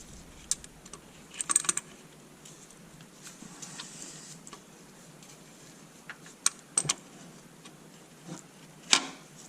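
Scattered light clicks and taps of hand tools and parts being handled while the new oil pressure switch is threaded in. There is a small cluster of clicks about a second and a half in, a few more around seven seconds, and a sharper click near the end.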